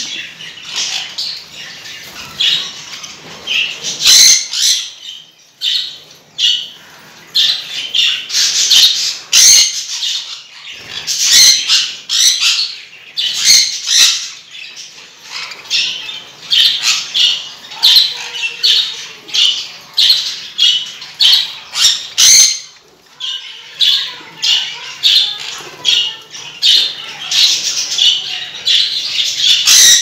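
A flock of caged budgerigars chattering and squawking, a dense stream of short, high, repeated calls, with a few sharp clicks among them.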